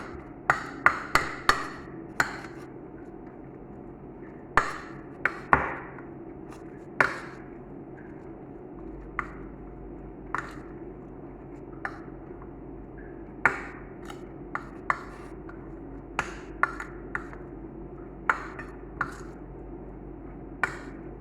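A utensil clinking and knocking against a bowl at irregular intervals, about twenty sharp strikes, while mashed potato and cheese are mixed, over a steady low hum.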